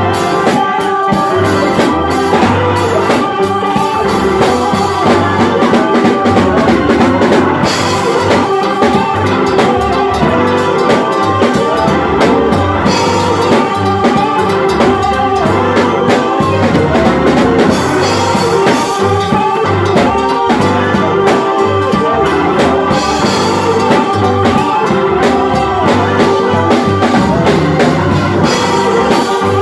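Gospel organ playing held chords over a live drum kit's steady beat, with no singing.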